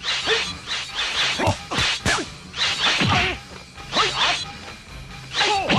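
Kung fu film fight sound effects: a rapid run of whacking blows and whooshing swings, about two a second.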